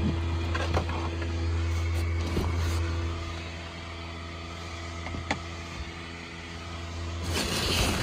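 Steady low hum of the Grinch inflatable's 12-volt blower fan running as the inflatable fills, heard inside a car. The hum drops in level about three seconds in, and there is a single sharp click a little past halfway.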